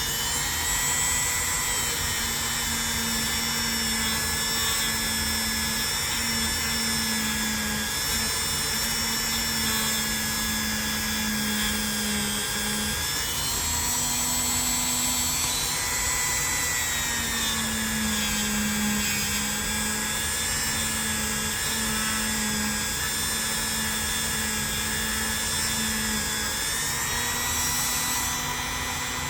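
Small high-speed rotary tool running steadily while polishing the metal of an old pocket knife. It gives a high whine whose pitch wavers slightly as it is pressed against the work.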